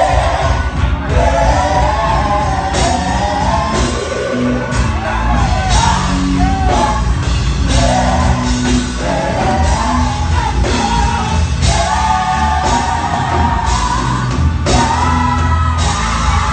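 Gospel vocal group singing live through microphones and a church PA, with instrumental accompaniment, in a large reverberant sanctuary.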